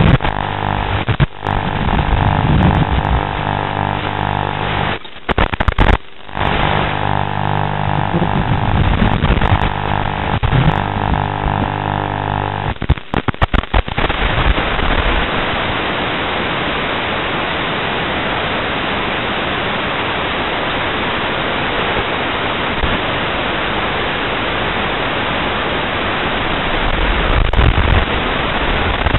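Sustained, music-like tones with a few brief dropouts, giving way about halfway through to a steady, even hiss of static.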